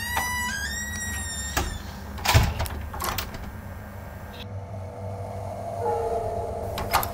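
A door creaking open: a high hinge squeal that steps upward in pitch over about a second and a half, followed by a few dull thuds or knocks, then a low steady hum.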